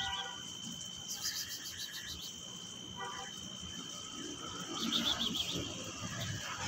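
Background ambience: a steady high-pitched whine with short chirping trills near the start and again about five seconds in.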